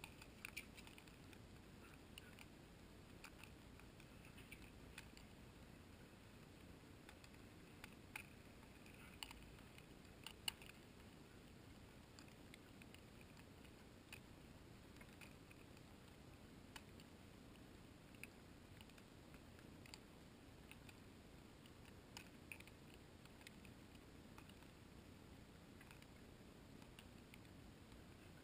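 Near silence: faint hiss with scattered small ticks and clicks.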